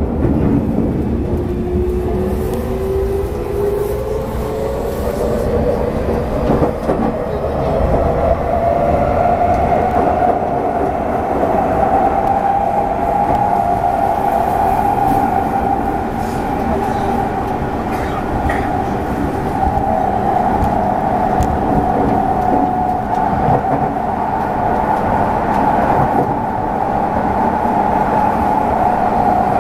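Tokyu 6000 series electric train heard from inside a passenger car, running over rumbling wheel and rail noise. The traction motor whine rises in pitch through the first ten seconds or so as the train gathers speed, then holds steady. A few sharp clicks from the track come through.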